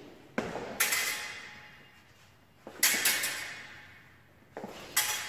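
A stage-fencing bout: three times a dull thud is followed by a brighter, sharper clash, each dying away slowly in a large hall. These are fencers' feet landing on a wooden floor and blades meeting.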